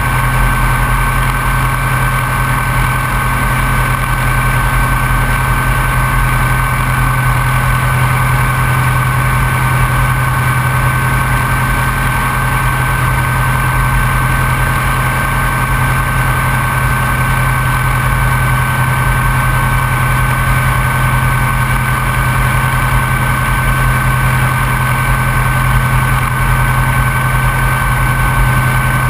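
Open-cockpit biplane's piston engine idling steadily with the aircraft standing still, heard close up from on board: a constant low drone with a thin steady whine above it.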